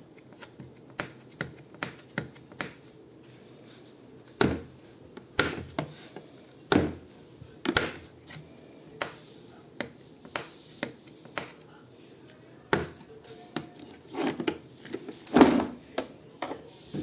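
Irregular clicks and knocks of hard plastic being handled: a rotary tool and its carry case being taken out and set up, with a heavier knock near the end. A steady high chirping of crickets runs underneath.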